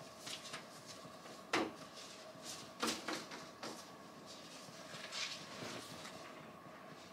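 Scattered knocks and clatter of things being handled, the loudest about a second and a half in and a quick pair near three seconds, over a steady two-tone electronic hum.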